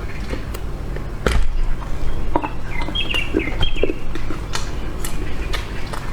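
Close-up eating sounds: bites and chewing of a frozen ice cream treat, with sharp crunches and clicks at irregular intervals. A few short high chirp-like squeaks come about halfway through.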